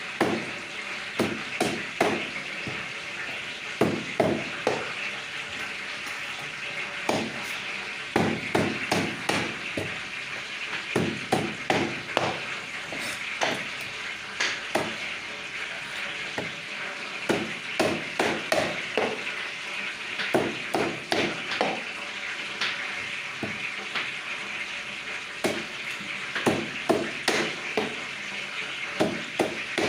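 Butcher's cleaver chopping chicken on a cutting block: clusters of quick, irregular knocks with short pauses between, over a steady background hiss.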